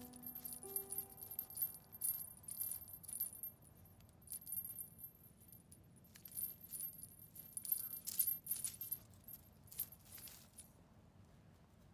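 A small bell on a cat teaser wand jingling in quick, irregular shakes as the toy is waved, stopping shortly before the end. Faint background music is heard for the first second or so.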